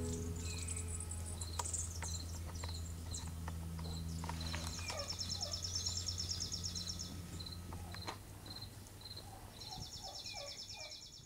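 Outdoor ambience of chirping insects: a regular high chirp about twice a second, with fast high trills in two stretches, over a low steady hum that fades out about eight seconds in, with scattered faint clicks.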